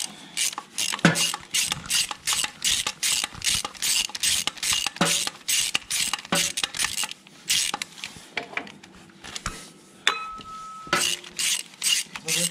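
Hand socket ratchet wrench clicking in quick runs of about four clicks a second, with short pauses between runs, as it is swung back and forth to back bolts out of a tractor's axle housing.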